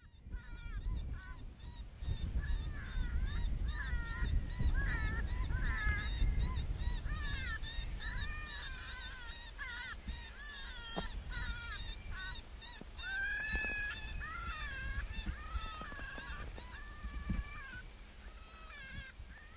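A flock of geese honking, many overlapping calls in quick succession over a low rumble. The calls thin out and grow fainter in the last few seconds, and a few sharp clicks come through in the middle.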